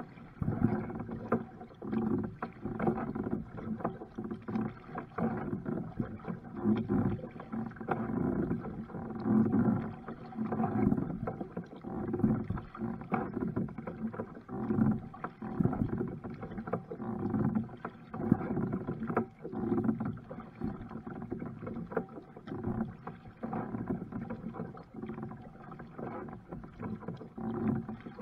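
Water splashing and sloshing around a kayak as it is paddled, in uneven surges about every second.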